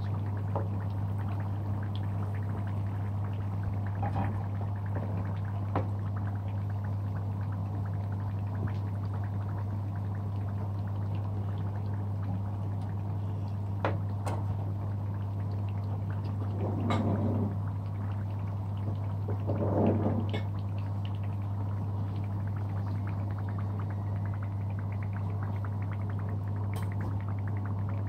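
Samosas deep-frying in hot oil: a steady crackling sizzle of bubbling oil with scattered small pops, and two louder swells of sizzling a little past halfway. A steady low hum runs underneath.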